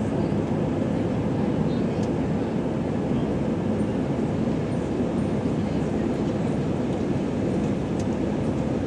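Steady cabin noise of an Airbus A319 climbing out after takeoff: an even rush of the twin jet engines and airflow, heard from a window seat over the wing, mostly low in pitch.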